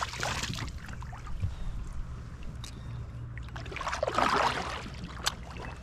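Kayak paddle splashing in the river: a splash right at the start, then a fuller paddle stroke swishing through the water about four seconds in, with a few light knocks of the paddle.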